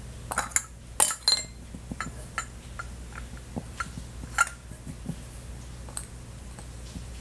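Hard plastic carrot-shaped containers clinking and clattering against each other and a ceramic egg tray as a rabbit noses one out and lifts it. A quick cluster of sharp knocks comes about a second in, followed by lighter scattered clicks, over a steady low hum.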